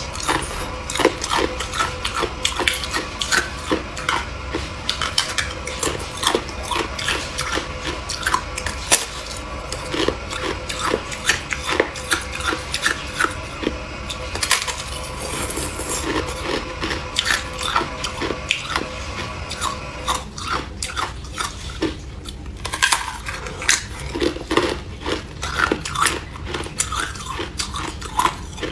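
Thin, hollow sheets of clear ice being bitten and chewed: a dense run of sharp, crisp cracks and crunches in quick, irregular succession.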